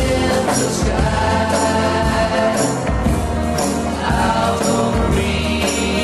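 1960s pop-rock song playing: sustained choir-like voices over a steady bass line, with a short high percussion hit about once a second.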